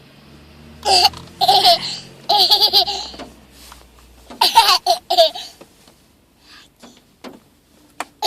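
Laughing in several pulsing bursts over the first five seconds, then only faint short sounds.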